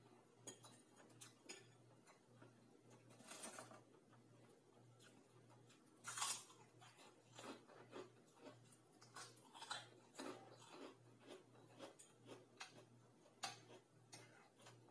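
Quiet eating sounds: a metal spoon and fork clicking against a bowl, chewing, and crunchy bites of prawn cracker, the loudest crunch about six seconds in.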